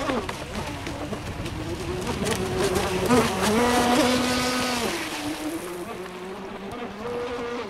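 Radio-controlled speedboat's motor running hard across the water. Its pitch rises and falls with the throttle, and it grows loudest as the boat passes close about three to five seconds in, then fades as it pulls away.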